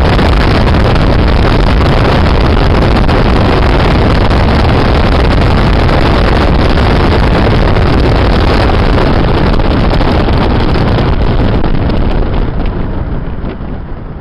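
Loud rushing wind and road noise of a moving car, heard through its open side window, with the engine running underneath. The rush dies down near the end as the car slows.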